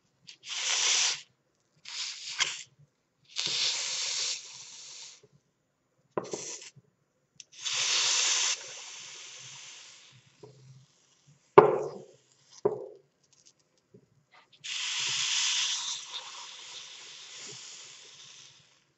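A hot knife blade sizzling against mandarin segments, the juice hissing into steam in a series of bursts of one to four seconds each. Two sharp knocks come about halfway through.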